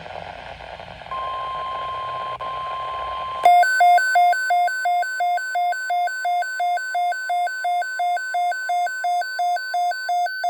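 NOAA Weather Radio broadcast: faint radio hiss, then the steady 1050 Hz warning alarm tone starts about a second in. At about three and a half seconds a weather-radio receiver's alert sounds over it, a loud, harsh electronic alarm that warbles between two pitches about three times a second.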